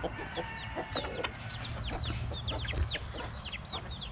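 Chickens clucking while chicks peep over them: many short, high, falling peeps, several a second, from about a second in.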